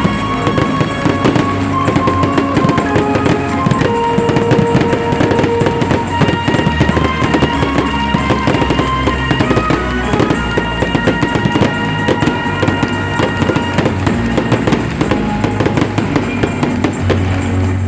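Fireworks going off in rapid, dense bangs and crackles over loud music played for a fireworks display.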